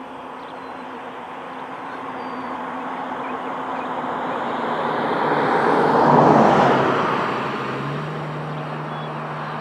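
A motor vehicle driving past on the road: its tyre and engine noise grows slowly louder, peaks about six seconds in, then fades.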